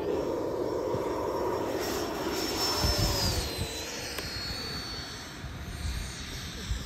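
Freewing F-22 RC jet's 90mm electric ducted fans whining at high power over a rushing of air during takeoff and climb-out. The whine's pitch drops a little after three seconds in, and the sound eases off toward the end.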